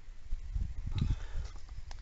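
Footsteps walking across garden ground, an uneven series of dull low thuds with a rumble on the microphone, and two short sharp clicks about halfway through and near the end.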